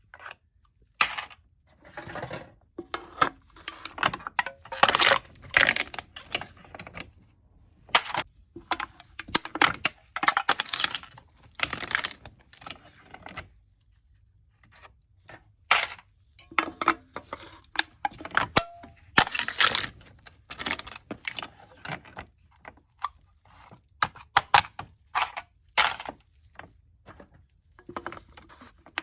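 Aluminium drink cans being crushed: irregular crinkling and crackling of thin metal in quick bursts with sharp pops, pausing briefly about halfway through.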